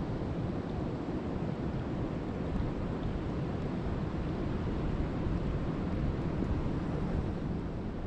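Steady rain falling, an even rushing noise weighted toward the low end with no breaks.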